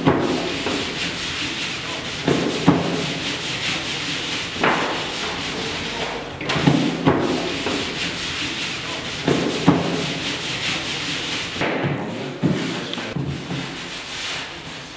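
Kitchen prep-table noise: a steady scraping, rushing sound with a short knock or clatter every second or two, as dough is worked and trays and food are set down on the table.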